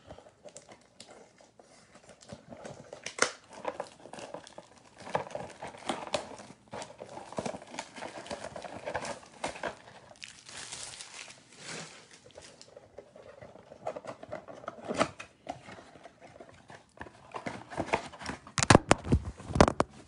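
Plastic shrink-wrap on a trading-card blaster box crinkling and tearing as it is unwrapped by hand, with irregular crackles and light taps. A cluster of louder knocks comes near the end.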